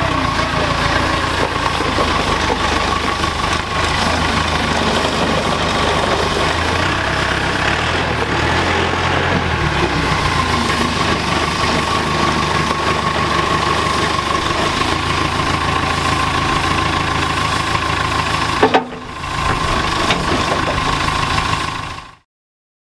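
JCB telescopic handler's diesel engine running steadily, with a steady high whine over it. A sharp click and a brief drop come about three-quarters of the way through, and the sound cuts off near the end.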